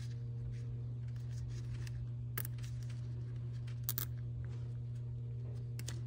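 A steady low hum, with a few faint clicks about two and a half and four seconds in as a zip tie is worked around a timing chain and its sprocket.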